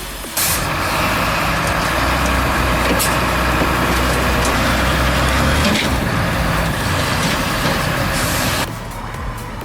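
Heavy diesel machinery running hard: a steady low engine hum under a loud mechanical hiss and rattle, with a few sharp clacks. It starts abruptly just after the start and cuts off abruptly near the end.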